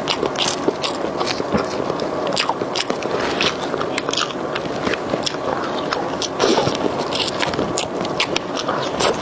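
Close-miked chewing of french fries: wet mouth clicks, smacks and crackles all through, with no break.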